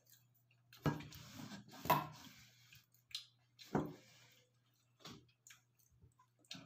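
Balut eggs being handled in a cardboard egg tray: a few short soft knocks and rustles, about a second, two seconds and nearly four seconds in, over a low steady hum.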